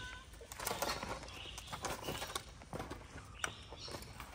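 Light rustling and scattered clicks as cat food is set down from a plastic container and stray cats crowd in to eat.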